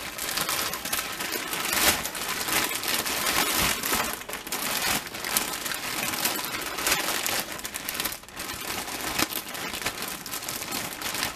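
Plastic bag crinkling and rustling as it is shaken and squeezed by hand, coating pig feet in seasoning. The crinkle runs on without a break.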